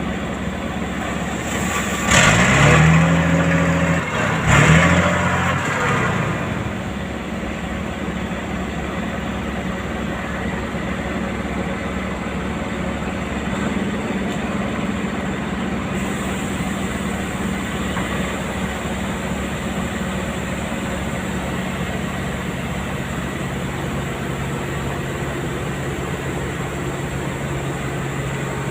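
Heavy-equipment engine running steadily, revving up hard twice in the first few seconds, then settling back to a steady drone.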